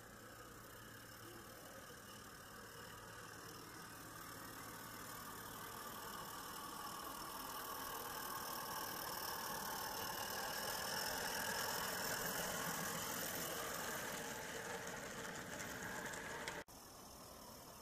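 Small Regner Konrad live-steam locomotive hauling a train of skip wagons on a 32 mm gauge garden railway as it passes by. Its steam and running noise, with a light rattle of the wagons, grows louder as it approaches, is loudest about two-thirds of the way through, then fades as it moves off and cuts off suddenly near the end.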